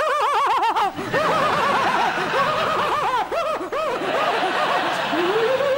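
A man laughing loudly in a rapid string of 'ha-ha' bursts, the deliberate laughter of a laughter-yoga exercise, ending in one longer drawn-out laugh.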